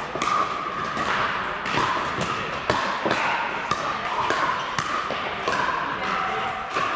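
Pickleball paddles striking a plastic ball and the ball bouncing on the court: a dozen or so sharp pops at irregular intervals from the near rally and neighbouring courts, echoing in a large indoor hall.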